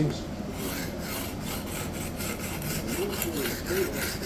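Hard Japanese steel knife edge scraped back and forth across a coarse diamond sharpening plate in quick, even strokes, about three a second, starting about half a second in. The edge is held square to the plate to grind out deep chips.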